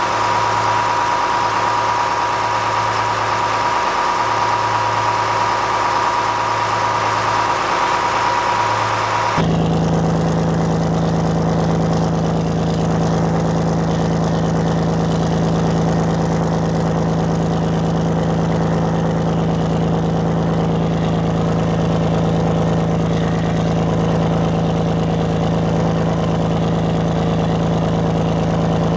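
Yanmar 6CA-ET marine diesel engine idling steadily. It is heard first up close in the engine bay with a steady high whine, then, about nine seconds in, at the hull-side wet exhaust outlet as exhaust and cooling water splash out.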